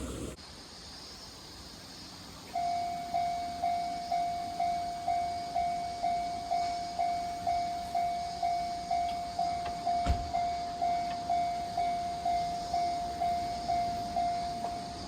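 Japanese railway level-crossing alarm starting about two and a half seconds in, ringing its single-pitched 'kan-kan' about twice a second, each ring dying away quickly: the warning that a train is approaching. A single sharp knock about ten seconds in.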